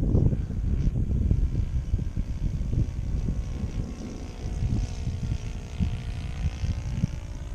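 Magnum .30 four-stroke glow engine of a radio-control airplane running in flight at a distance, a faint tone whose pitch slowly bends up and down as it passes, under gusty wind rumble on the microphone.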